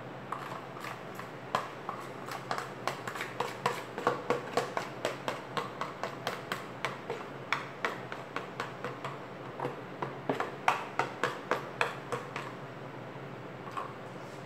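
A spoon tapping and scraping against a plastic pitcher, a rapid run of sharp knocks at about three to four a second, while thick homemade soap batter is emptied out of the pitcher. The tapping thins out near the end, with one last knock.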